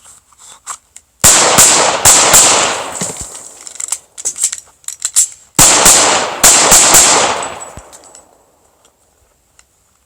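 Pistol being fired in two rapid strings of about five or six shots each, a couple of seconds apart, each shot trailing off in an echo.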